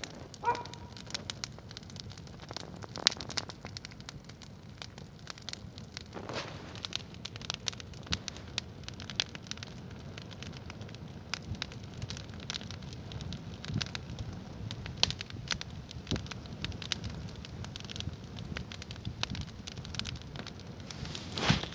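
Wood campfire burning, crackling with many irregular sharp pops over a steady low rush of the flames.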